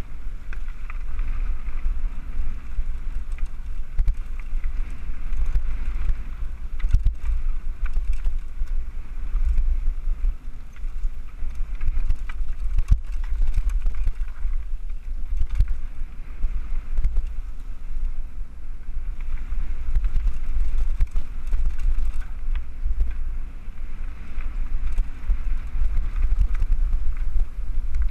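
Mountain bike riding fast down a dirt singletrack, heard from a camera on board: steady wind buffeting and the rumble and hiss of tyres on the trail, with frequent short knocks and rattles from the bike over bumps.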